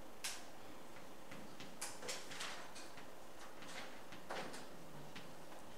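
Chalk writing on a blackboard: a string of sharp taps and short scratchy strokes as letters are chalked up, irregular, with a couple of longer scrapes.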